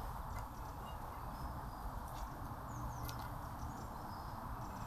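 Steady outdoor background hiss with faint, brief bird chirps and a few soft clicks.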